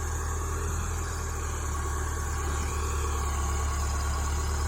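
Backhoe engine running steadily under a working load, with a thin steady squeal coming in about a second and a half in, which the owner believes is a worn bearing on the engine's fan.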